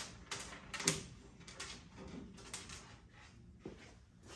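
A few light knocks and clicks of things being handled, the loudest about a second in, over faint steady background noise.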